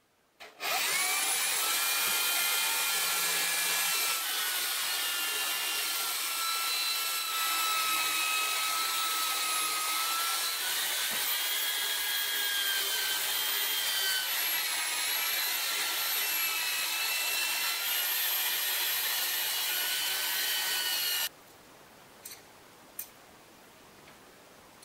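Electric drill running under load, its twist bit cutting into steel, with a steady whine whose pitch drifts slowly. It starts about half a second in and stops suddenly near the end, followed by a few faint clicks.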